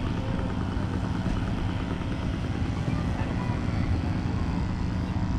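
1959 Ford 841 Powermaster tractor's four-cylinder petrol engine running steadily, an even low rumble.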